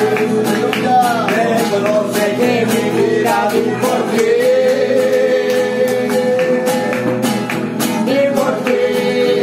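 Two men singing a Christian song together, accompanied by two strummed acoustic guitars. The voices hold long notes over a steady, even strumming rhythm.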